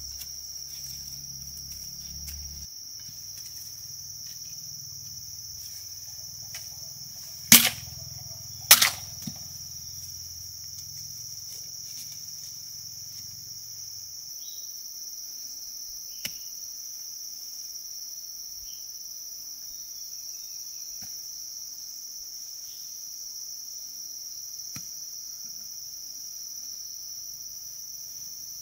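Steady high-pitched insect chorus, like crickets, with two loud sharp knocks about a second apart a third of the way in and a few faint clicks.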